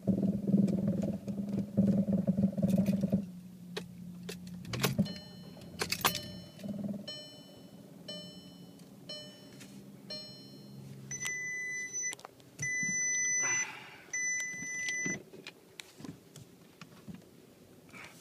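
2011 Volkswagen Tiguan instrument-cluster warning chimes: a run of short beeps about once a second, then three longer, louder tones, going with the red warning light of a power steering failure. A low buzzing hum with rattling fills the first three seconds, and a few clicks come throughout.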